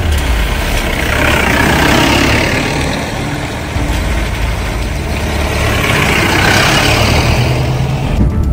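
Two Mahindra utility vehicles, a jeep and then a Bolero, drive past one after the other on a wet road. Engines run steadily, and tyre hiss swells as each passes, about two seconds in and again around six and a half seconds.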